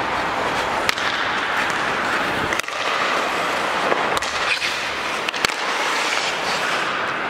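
Ice hockey skate blades scraping and carving across rink ice, with four sharp clacks of a stick on the puck spread through it.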